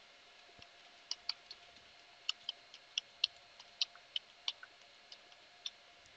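Computer keyboard keystrokes: an irregular run of short, sharp clicks as an address is typed, faint against a low steady hum.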